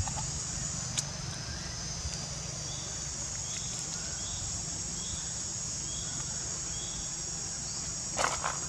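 Steady high-pitched drone of insects, with a faint short chirp repeating about every three-quarters of a second through the middle and a brief louder burst of noise near the end.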